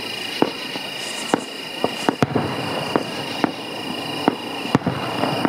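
Aerial firework shells bursting, about ten sharp bangs at irregular intervals, some coming close together around the middle, over a steady high-pitched drone.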